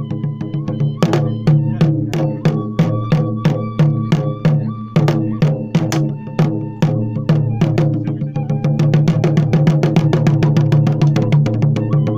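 Festival drumming: drums struck in a steady beat that quickens into a rapid roll about eight seconds in, with a high held melody line sounding over the drums.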